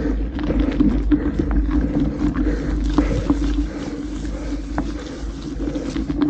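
Mountain bike riding over a gravel forest road: wind rumbling steadily on the microphone, with tyre crunch and scattered rattling clicks from the bike.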